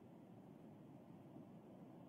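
Near silence: a faint, steady low hiss with no distinct events.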